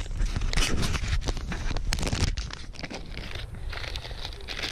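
Small clear plastic bag of mounting screws crinkling and crackling as it is handled, busiest in the first half and thinning out after about two and a half seconds.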